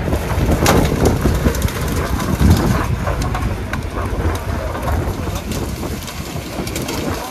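Tracked excavator at work, its engine running under load, with a dense crackling and clattering as it pushes through rock and brush.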